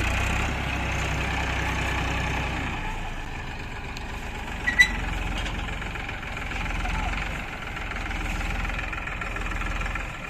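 A tractor engine running steadily, heavier for the first few seconds, then settling. A short, sharp clink about five seconds in.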